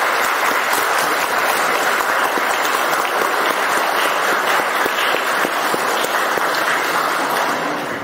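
Audience applauding steadily, starting to die away at the very end.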